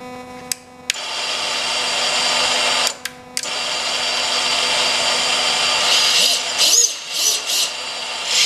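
Brushless motors on an FPV quadcopter, Hypetrain Blaster 1800KV among them, armed on the bench with no props fitted. A steady electronic humming, put down to the ExpressLRS (ELRS) radio link, comes first. About a second in, the motors spin up into a high, steady whir, which cuts out briefly about three seconds in. Near the end the pitch rises and falls with short throttle changes.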